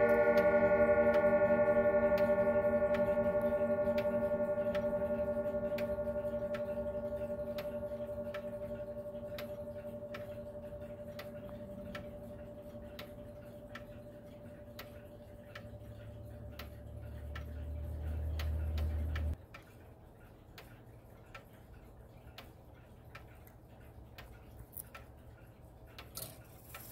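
Howard Miller Haverhill grandfather clock's chime rods ringing out and slowly fading after a chime, with the movement ticking steadily. A low rumble swells and cuts off abruptly about nineteen seconds in, leaving only quiet ticking.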